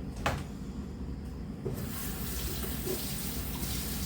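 Kitchen faucet running water into the sink, turned on a little under two seconds in, after a brief knock.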